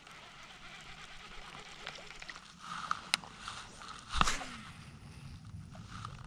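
Baitcasting rod and reel being handled: a sharp click from the reel about three seconds in, then a louder swish and bump about a second later as the rod is swung in a cast.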